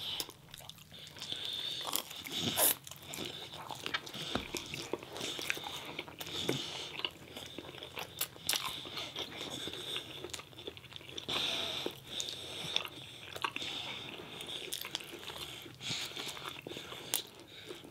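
Close-miked eating: repeated bites and chewing of pizza and chicken wings, with irregular crunches and wet mouth clicks.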